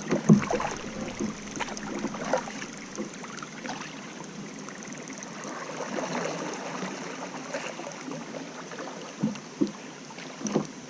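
An Ocean Kayak being paddled and brought in to the landing: water splashing around the paddle and hull, with irregular knocks of the paddle and hull, the loudest right at the start and two more near the end.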